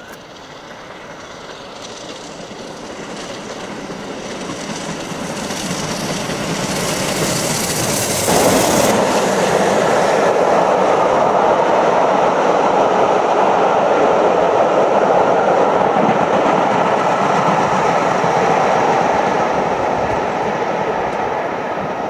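Bulleid unrebuilt Battle of Britain class 4-6-2 steam locomotive approaching at speed, growing steadily louder until it passes close by about eight seconds in with a sudden jump in level. A steady noise of the carriages' wheels running on the track follows, easing near the end as the train moves away.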